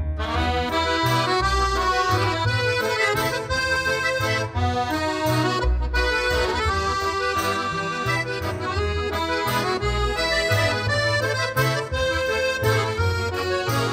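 Instrumental background music with a regular beat and a bass line repeating under it.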